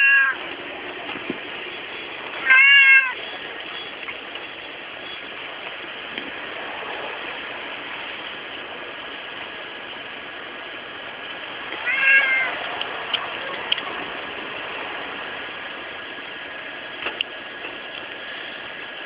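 A cat meowing: short separate meows, one right at the start, one about two and a half seconds in and one about twelve seconds in, with long pauses between them filled by a steady background hiss.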